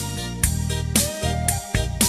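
Background music with a steady beat of about two strokes a second, over bass and guitar.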